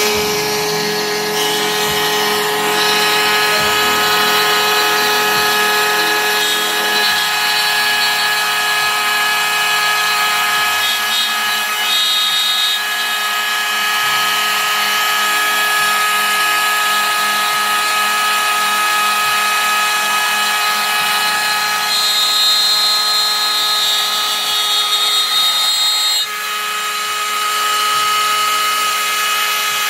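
Ridgid wood router on a Maslow CNC running at high speed and cutting plywood: a loud, steady whine of many tones over a hiss. The mix of tones shifts a few times.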